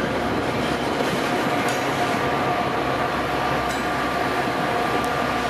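Metra commuter train of diesel-electric power and bilevel coaches running past and away, a steady mix of rail and engine noise with two thin steady whining tones over it.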